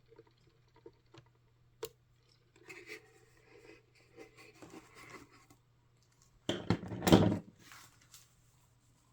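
Handling noises from a plastic wall clock being handled and set up: small clicks, a sharp click about two seconds in, soft rustling and scratching, then a louder scraping clatter about seven seconds in.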